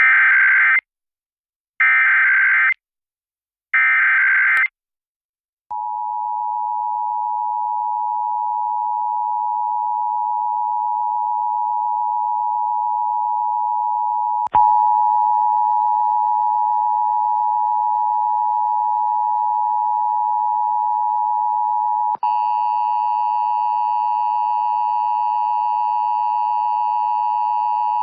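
Emergency Alert System test broadcast over FM radio: three short bursts of screechy data (the SAME header), then about six seconds in the steady two-tone attention signal. About halfway through there is a click, after which the tone turns harsher with overtones and a low hum beneath it; another click near 22 seconds adds higher tones.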